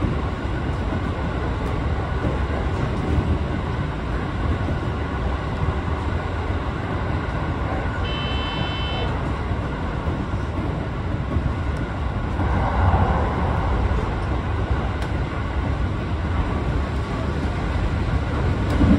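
Inside the leading car of a JR 205 series electric train running along the line: a steady low rumble of wheels on the rails. A brief high tone sounds for about a second some eight seconds in.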